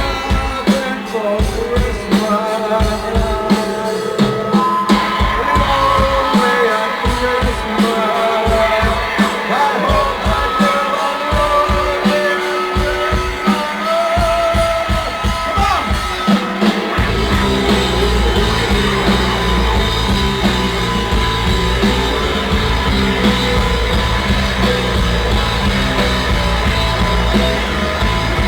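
Live rock band playing a song with drums and singing, recorded on a phone. About 17 s in, the low end thickens into a heavy, continuous bass drone.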